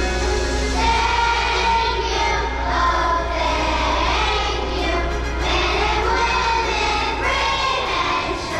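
A group of children singing a song together. A steady low hum runs underneath.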